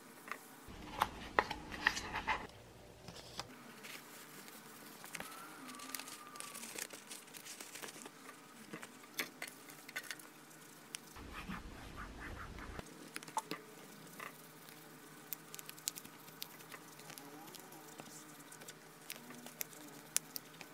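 Thin plastic protective film and its backing liner crinkling and rustling as they are handled and peeled over a MacBook's aluminium lid, with scattered light clicks and taps. Near the start, a tissue rubbing across the lid with a short louder stretch of wiping.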